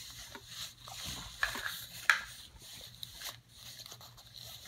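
Plastic toy figures being handled and set down: a string of light clicks and knocks, the loudest about two seconds in.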